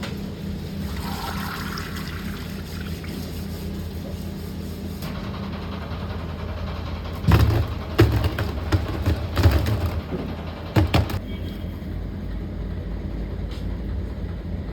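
Steady low hum of factory machinery, with a cluster of loud knocks and clatters about halfway through.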